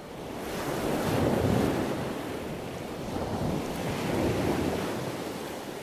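Ocean surf: waves washing in, swelling twice about three seconds apart.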